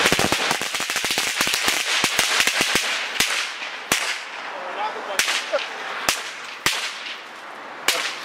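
A pack of about thirty small firecrackers (petardas) going off: a rapid crackling string of sharp bangs that thins out after about three seconds into single cracks roughly once a second.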